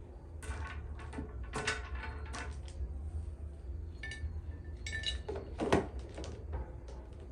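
Hard household items being handled: a series of clinks and knocks, some ringing briefly like dishes or glass, with the loudest knock a little before the end. A low steady hum underlies it.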